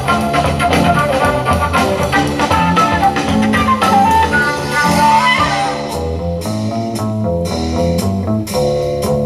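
Band music with guitar and bass. About six seconds in, the bright top end drops away and the playing turns sparser.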